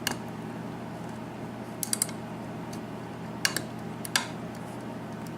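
Lock pick working the pin stack of a Corbin KIK six-pin cylinder with security pins, with a handful of sharp metal clicks: one at the start, a quick cluster about two seconds in, and two more later, as pins are lifted and set. A steady low hum runs underneath.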